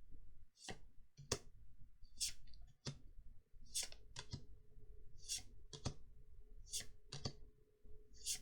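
Trading cards being handled and flipped through by hand: an irregular string of light clicks and short slides, card against card, roughly two a second.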